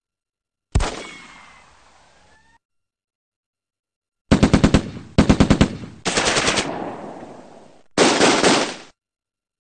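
Gunfire: a single shot with a long echoing decay, then four bursts of automatic machine-gun fire, roughly ten shots a second, the later bursts denser.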